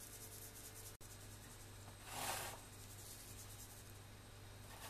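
Small sieve of icing sugar being shaken and tapped over a cake: faint, quick rustling taps, with one louder brushing rub about two seconds in. A low steady hum sits underneath.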